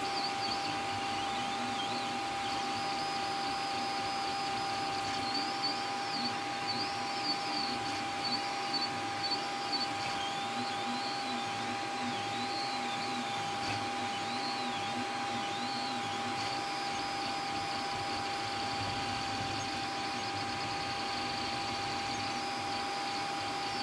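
MakerGear M2 3D printer printing: its cooling fans give a steady whirring with a constant hum, and the stepper motors moving the print nozzle add a high-pitched whine that rises and falls in repeated arcs as the head sweeps around, most busily in the middle stretch.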